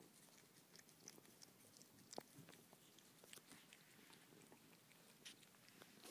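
Faint, scattered wet clicks of a pet licking and lapping ice cream close to the microphone, one click a little stronger about two seconds in.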